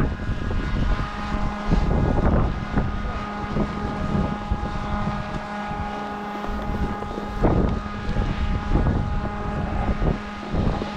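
Strong gusty wind buffeting the microphone, with a steady machine hum underneath.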